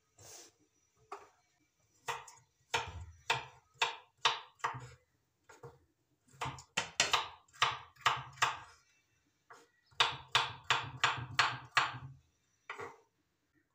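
Kitchen knife chopping green pepper and tomato on a wooden cutting board: quick knocks about three or four a second, in three runs with short pauses between them.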